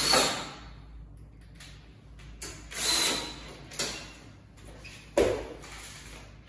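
Wooden flat-pack bed parts being handled during assembly: a few short scraping, sliding noises, the last starting sharply about five seconds in.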